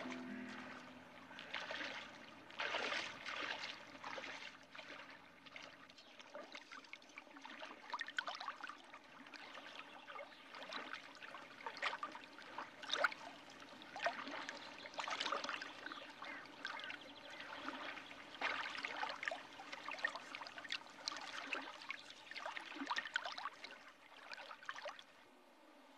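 Shallow water splashing and trickling in small, irregular splashes, a few a second, fading out near the end.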